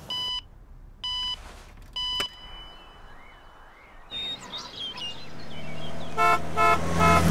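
Three short electronic beeps, a second apart. Then a car approaches, its engine growing louder, and its horn sounds three quick toots as it passes.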